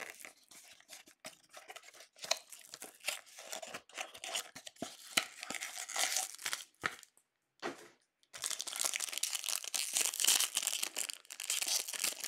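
Foil trading-card pack wrappers being torn open and crinkled in the hands, an irregular crackling broken by a short pause a little past halfway, then denser crinkling.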